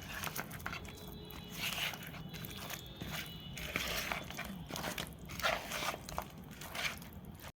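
Hands rubbing a wet spice paste into raw fish pieces for a marinade: irregular soft wet rubbing with small clicks and taps.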